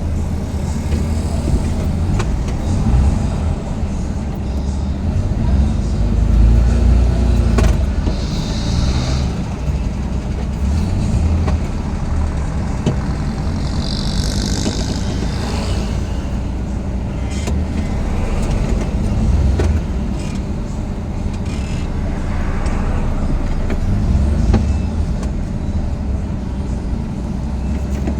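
Steady low rumble of a motor vehicle running, with brief hissing noises about a third and halfway through.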